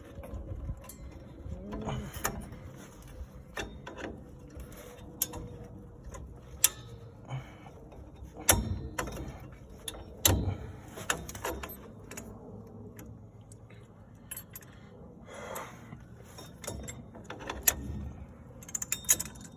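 Vise grips and a steel brake adjuster spring clinking and clicking against the drum brake shoes and hardware as the spring is stretched across into place. Irregular metallic clicks and knocks, a few sharper ones scattered through.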